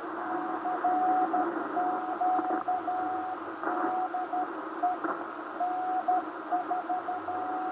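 Morse code (CW) from a station on the 40-meter band heard through a Ten-Tec Argonaut V transceiver's speaker: a single tone keyed on and off in dits and dahs over steady band hiss, with a few crackles of static.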